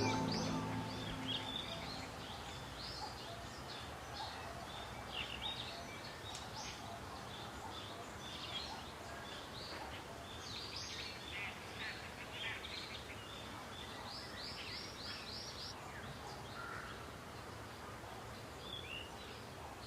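Several birds chirping and singing in short, high calls over a faint steady background hiss. About fourteen seconds in comes a quick run of five like notes.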